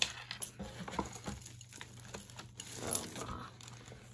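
Light, irregular clicking and rattling of a beaded silver-tone necklace and chain being handled and pulled apart while tangled.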